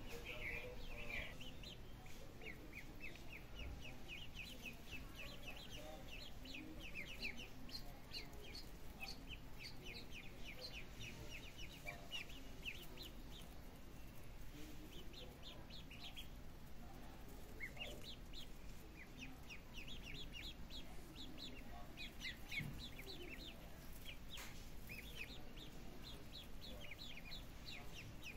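A group of ducklings peeping: rapid runs of short, high peeps from many birds at once, with a brief lull a little past halfway.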